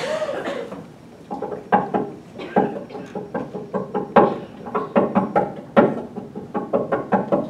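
Rhythmic tapping with the full hand on a grand piano, a run of knocks of uneven loudness and spacing that gives a piece's rhythm with accents and dynamics.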